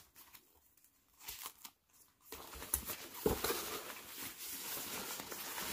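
Hands rummaging in a cardboard box, rustling a drawstring bag and crinkle-paper packing. It starts with a few faint handling ticks, and steady rustling sets in a little past two seconds in.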